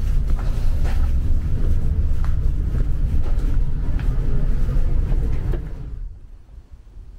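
Wind buffeting the microphone: a loud, uneven low rumble with a few light clicks, which drops away sharply about six seconds in.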